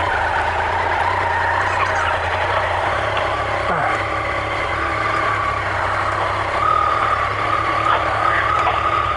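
Yamaha MT-09 Tracer's three-cylinder engine idling steadily, with a second motorcycle's engine running nearby.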